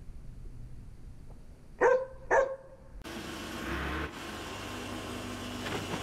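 A dog barks twice, about two seconds in, the two barks half a second apart. From about three seconds in, a steady engine hum runs.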